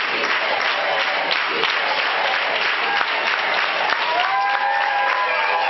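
Audience applauding: dense, steady clapping from a large room. A few held tones come in about four seconds in.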